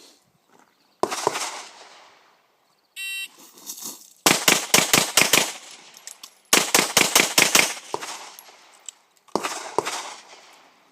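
Shot timer beeps once, then a pistol fires an El Presidente string: two rapid bursts of about six shots each, separated by a pause of about a second for the reload. The string takes about 4.6 s from the beep to the last shot. Single loud bangs also sound about a second in and near the end.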